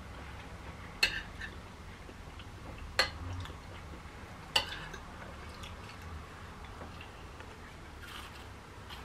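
Metal spoon and fork clinking against ceramic dinner plates during a meal. There are three sharp clinks, about a second, three seconds and four and a half seconds in, with a few fainter taps, over a low steady hum.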